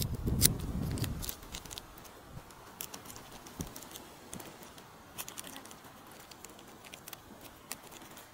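Scattered light clicks and taps of a spoon against a small bowl as seasoning is scooped. Wind rumbles on the microphone for about the first second and a half.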